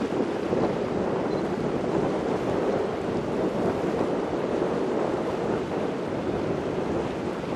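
Wind blowing across the microphone mixed with the wash of choppy river water: a steady, unbroken rushing noise with no engine tone.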